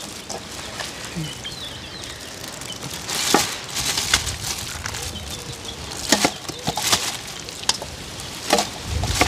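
Clear plastic bag rustling and crinkling as handfuls of wet seasoned goat meat are dropped into it, with several sharp crinkles a second or two apart.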